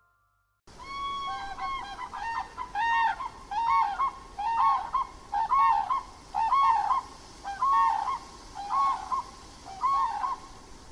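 Grey crowned crane calling: a steady series of short two-note calls, a little faster than one a second, starting about half a second in, over a steady background hiss.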